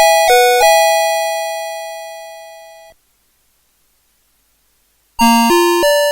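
A CITIZEN Melody Box 30 alarm clock's electronic melody chip plays the last few chime-like notes of one tune and ends on a long chord that fades away. After about two seconds of silence the next tune starts with quick notes. The tune and accompaniment are split between the stereo channels.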